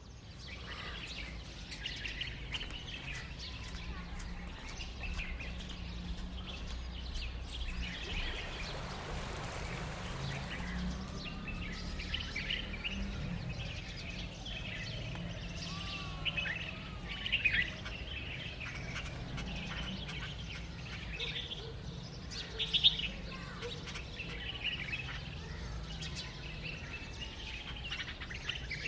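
Birds chirping repeatedly over a steady low hum, with a couple of louder short sounds about two-thirds of the way through.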